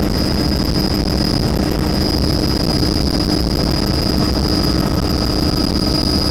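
Helicopter heard from inside the cabin in steady flight: a loud, unchanging rotor and turbine drone with a steady high whine.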